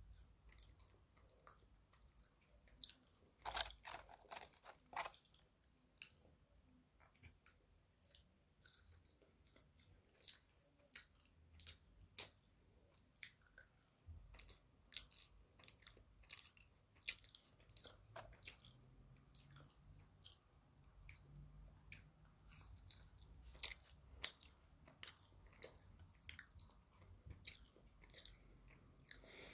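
A person chewing McDonald's French fries close to the microphone: many short, soft crunching clicks. There are a few louder bites around four seconds in, and the chewing comes more often in the second half.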